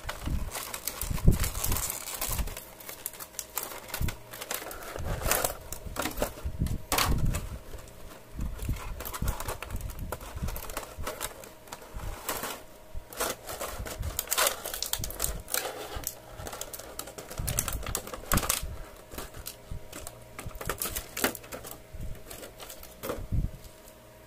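Thin clear plastic blister tray crackling and clicking irregularly as a toy action figure and its plastic parts are pried out and handled.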